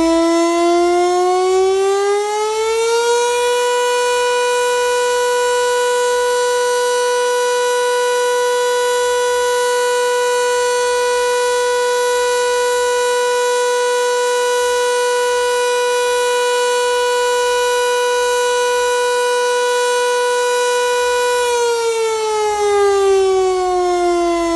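SIII outdoor warning siren sounding one loud pitched wail. Its tone climbs over the first three seconds or so, holds one steady pitch for about eighteen seconds, then falls away steadily near the end.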